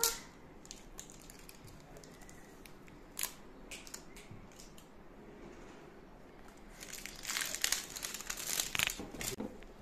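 Crinkling and clicking of a small coffee body scrub pack being picked at and pried open by a child's fingers: a few scattered clicks at first, then a dense burst of crinkling from about seven seconds in until near the end.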